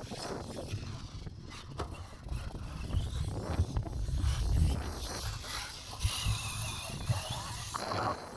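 Wind rumbling on the microphone, strongest around the middle. A faint rising and falling whine from a distant electric RC car runs through it, the Hong Nor Mega Booster on a 4S battery.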